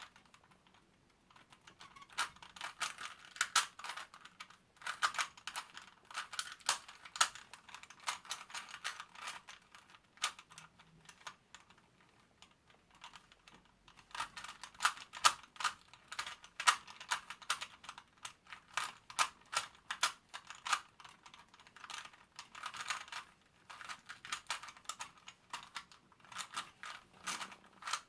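Rubik's brand 3x3 cube being turned fast in a speedsolve: rapid runs of plastic clicking and clacking, broken by short pauses of a second or two. The turns are stiff.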